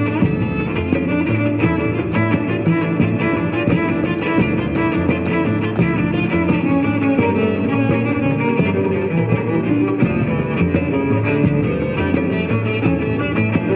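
Cello bowed over layered live-looped cello parts, making a dense, continuous string texture.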